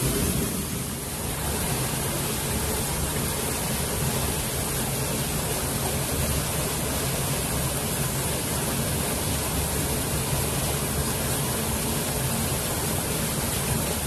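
Steady rush of water from a small forest waterfall pouring into a rock pool and the stream flowing over rocks.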